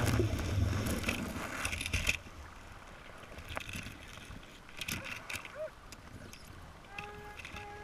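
Scuba regulator exhaust: a diver's exhaled bubbles rumbling for about the first two seconds, then quiet underwater noise.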